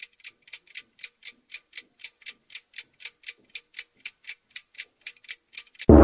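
Clock ticking, about four even ticks a second. Right at the end a loud gong strike comes in suddenly and rings on.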